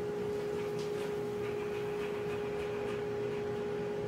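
Shop dust collector, built from parts of a Harbor Freight unit, running steadily under suction: a steady whine from its motor and impeller over a rush of air, with a few faint ticks.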